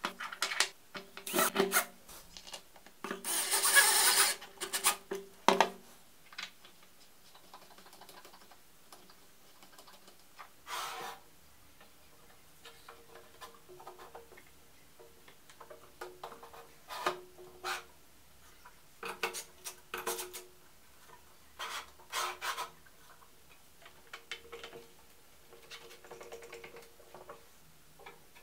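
Hands handling and assembling 3D-printed plastic jig parts on steel rods: intermittent rubbing, scraping and clicks, with a longer, louder burst of noise about four seconds in.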